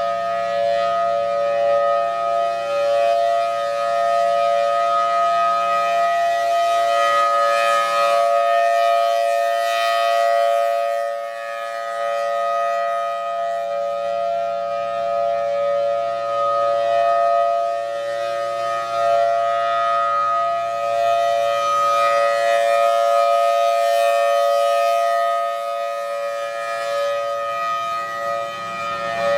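Federal Signal Thunderbolt 1003 rotating mechanical storm siren sounding its steady Alert tone, a constant multi-note pitch that slowly swells and fades in loudness as the siren head turns.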